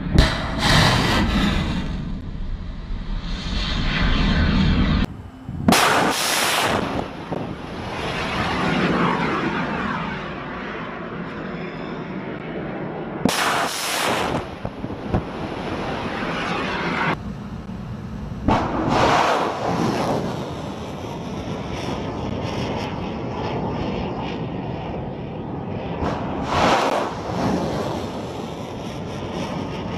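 Shipboard weapons firing aboard a US Navy destroyer, in several separate shots cut together: sudden blasts, each followed by a long roaring rush like a missile launch. A heavy low rumble of wind and sea runs under the first few seconds.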